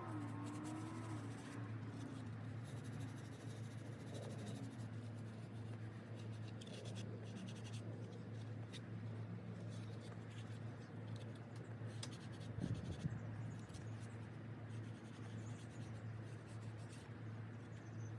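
Sandpaper rubbed by hand over a 3D-printed plastic helmet part: irregular scratching strokes over a low steady hum, with a brief knock near the middle.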